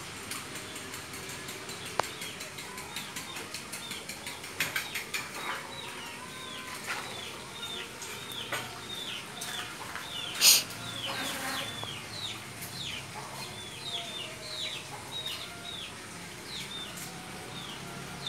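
Birds chirping: a long run of short, falling chirps, two or three a second, with scattered light clicks and one sharp click about halfway through.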